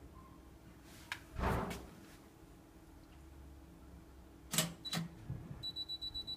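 Green-screen selfie photo kiosk at work: a soft thump about one and a half seconds in, two sharp clicks near the middle, then a rapid, even pulsing of about five beats a second over a high steady whine.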